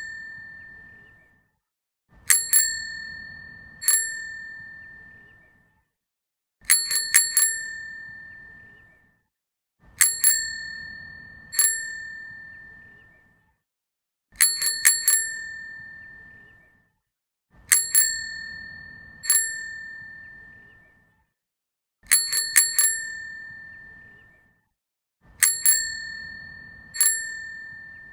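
Bicycle bell rung over and over, in clear metallic dings. A quick run of three or four dings alternates with a pair of strikes followed by a single ding, each group ringing out and fading over about two seconds before the next.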